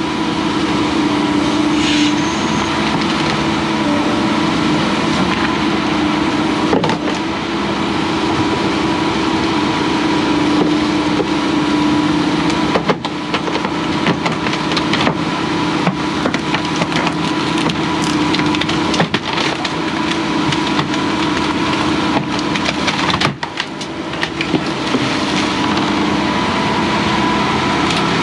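Hyundai crawler excavator's diesel engine running steadily under hydraulic load, with scattered knocks and cracks of old wooden dock boards as the bucket grips and pulls a dock section up out of the water.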